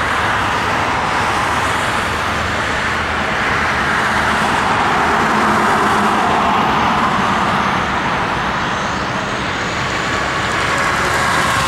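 Cessna 208B Caravan's single Pratt & Whitney PT6A turboprop running steadily at taxi power, a continuous whining hum of turbine and propeller.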